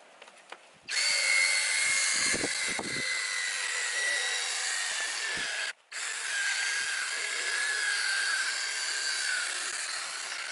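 Cordless drill spinning a foam polishing pad on a plastic taillight lens, its motor whining in two runs with a short stop just before six seconds in. In the second run the whine sits a little lower and sags toward the end, as the drill's battery is getting low.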